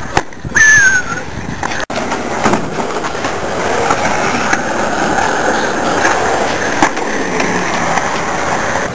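Skateboard wheels rolling over smooth concrete, a steady rolling noise as the board carves through a bowl, with a few light clacks. A short, loud falling tone sounds about half a second in.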